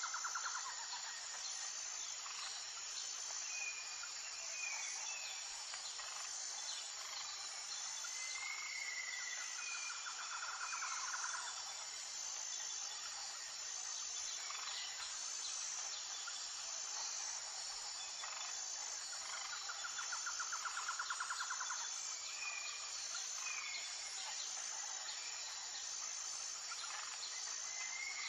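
Bird calls over a steady high insect-like drone. A buzzy trill lasting about two seconds comes back roughly every ten seconds, with short rising chirps in between.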